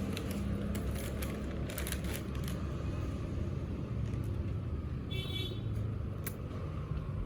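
Steady low rumble of road traffic, with scattered light clicks and one short high-pitched call about five seconds in.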